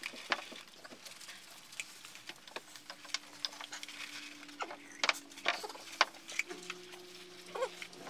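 Scattered quick clicks, taps and crinkles from a group eating fast food: paper wrappers, cups set down on the table, chewing and handling food. A faint steady hum comes in about two and a half seconds in.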